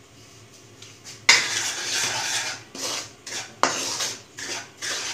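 A spatula scraping dry semolina around a pan in repeated sweeping strokes, starting a little over a second in.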